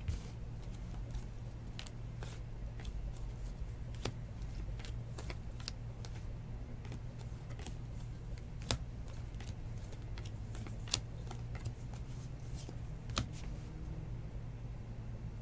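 Glossy baseball trading cards being handled and flipped through by hand, with irregular light clicks and snaps as the cards slide past each other, over a steady low hum.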